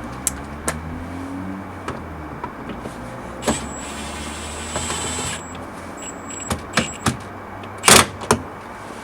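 Sharp plastic clicks and knocks from a trailer wiring harness connector and trim being handled and pushed into place at a car's taillight, the loudest a hard snap about eight seconds in. Under them runs a steady low rumble.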